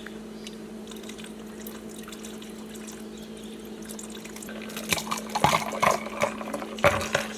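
A margarita being made behind a bar: liquid pouring over a steady low hum, then irregular clattering and knocks from about five seconds in.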